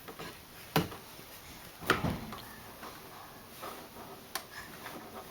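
Two sharp knocks about a second apart, followed by a few fainter clicks and light handling sounds.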